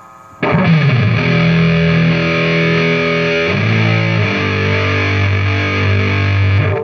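Electric guitar played through a 1970 HH IC-100S solid-state amplifier's sustain channel, a heavily distorted fuzz tone. A chord is struck about half a second in and held, moves to a lower held chord about halfway through, and is cut off suddenly at the end.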